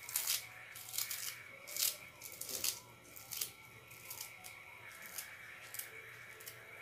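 Fresh coriander and green onion being torn and crumbled by hand, a series of short crisp crackles and rustles, thick for the first three seconds and then sparser.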